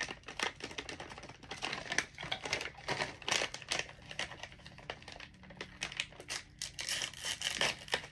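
Plastic treat pouch crinkling and crackling in the hands as it is handled and opened, an irregular run of sharp crackles.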